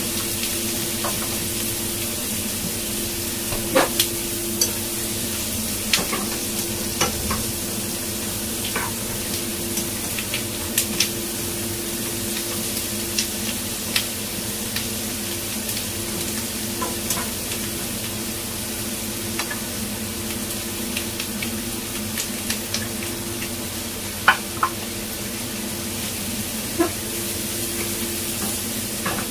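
Garlic chive stems and garlic sizzling in oil in a hot nonstick wok on a gas burner while a spatula stirs them, scraping the pan and clicking against it a dozen or so times. A steady hum runs underneath.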